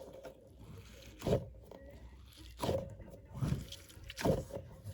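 Glitter dumpling squishy toy being squeezed in the hands, giving several separate wet squelches about a second apart.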